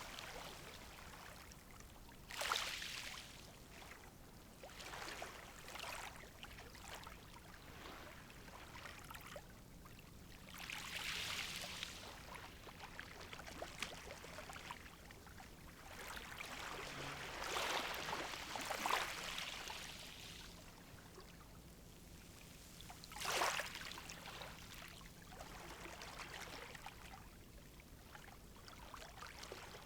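Gentle sea waves lapping and washing on the shore, a soft surge of hiss every few seconds, with a few sharper splashes, the clearest a little after two seconds in and about three-quarters of the way through.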